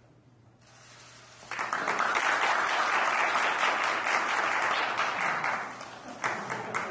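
Applause, starting about a second and a half in, holding for a few seconds and tapering off near the end.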